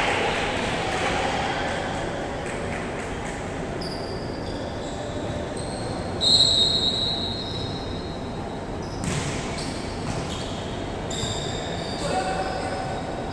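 Athletic shoes squeaking on a hardwood gym floor: several short, high squeaks scattered through, the loudest about six seconds in, with a sharp hit about nine seconds in, all in the echo of a large hall.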